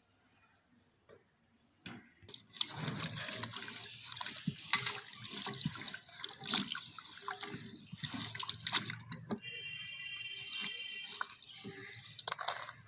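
Water splashing and dripping, with many small knocks, starting about two seconds in, as when something is rinsed by hand in a basin of water.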